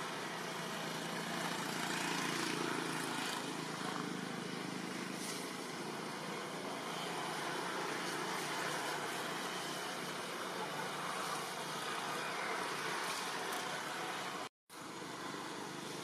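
Steady outdoor background noise: an even hiss with a faint low hum in the first few seconds. It cuts out completely for an instant near the end.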